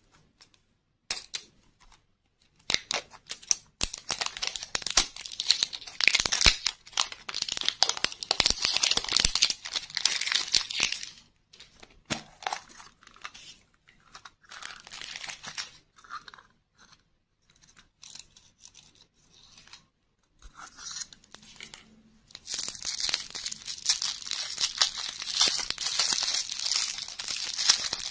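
Plastic shrink-wrap being peeled and torn off a plastic toy egg: long stretches of crackling and tearing, with scattered sharp clicks of plastic in a quieter middle part. Near the end, a lollipop's clear cellophane wrapper crinkles.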